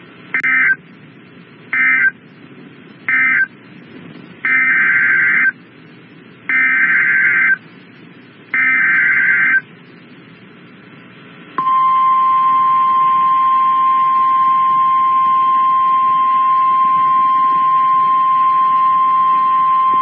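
Emergency Alert System SAME data tones: three short bursts marking the end of one alert, then three longer one-second bursts carrying the next alert's header. About halfway through comes the steady single-pitch 1050 Hz NOAA Weather Radio warning alarm tone, which announces a new warning.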